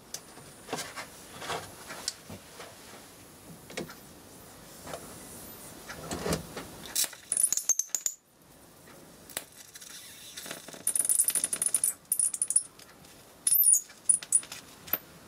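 High-voltage arc from a flyback transformer crackling and sizzling in several short bursts through the second half, after a few faint clicks.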